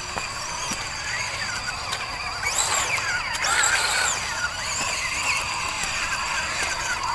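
Small MN128 RC off-road car's electric motor and gears whining, rising and falling in pitch as the throttle is worked, loudest around the middle. A steady high thin tone runs underneath.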